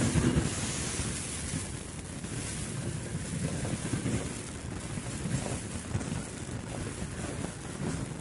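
Wind buffeting the microphone over a low, uneven rumble, with no clear pitch or rhythm.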